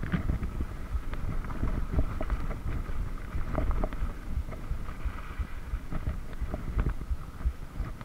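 Mountain bike riding over a dirt forest singletrack: steady wind and trail rumble with frequent small rattles and knocks from the bike over the rough ground.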